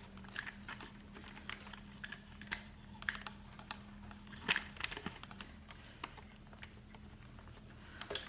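Irregular light clicks and taps of small plastic parts being handled and worked in the animatronic toy bear's exposed eye and mouth mechanism, with a faint steady hum that stops about halfway through.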